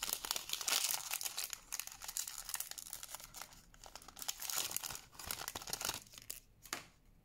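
Foil booster-pack wrapper of a Pokémon TCG Shining Fates pack crinkling and rustling as it is handled and the cards are drawn out. The crackling dies down about six seconds in, leaving a couple of soft clicks.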